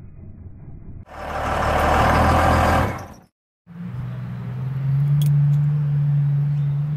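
Dodge Ram 2500 truck's diesel engine: a loud stretch of engine noise starting about a second in that cuts off abruptly after about two seconds, then, after a short gap, a steady low idle drone.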